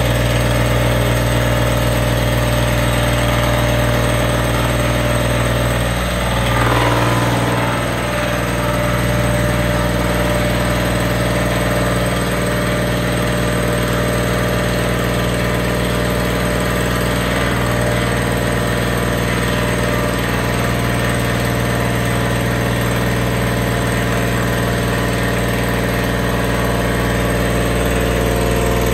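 CNC milling machine's cutter milling a ring of S-NiCr35-3 chrome-nickel cast iron hardened to 60 HRC: a loud, steady machining drone of spindle and cutting. About six seconds in, the pitch wavers briefly and the sound dips slightly, then settles back.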